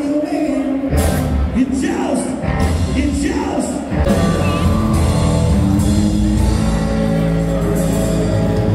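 Music with a singing voice. It gets louder about four seconds in, with sustained notes over a steady heavy bass.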